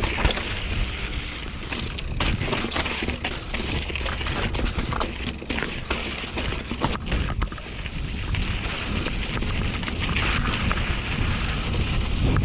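Mountain bike being ridden over a rocky trail, heard from on the bike: steady wind rumble on the microphone with tyre noise, and frequent sharp clicks and rattles as the bike jolts over rocks.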